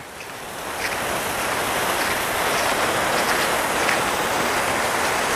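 Red-green ground fountain firework spraying sparks with a steady hissing rush that builds over the first second or two, with a few faint crackles.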